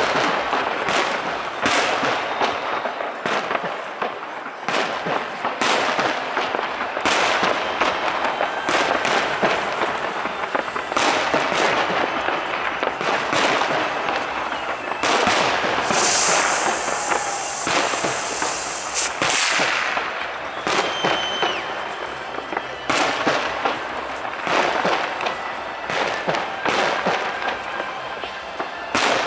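Fireworks display: aerial shells bursting in quick succession. A few seconds of dense hissing crackle come past the middle.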